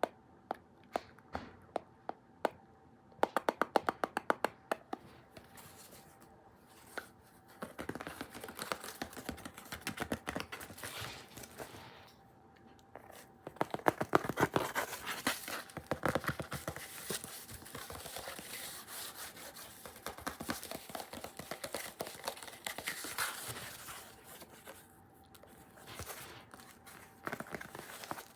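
Close-up tapping and scratching on objects. Single sharp taps come first, then a quick run of taps, then a long stretch of scratching and crinkling.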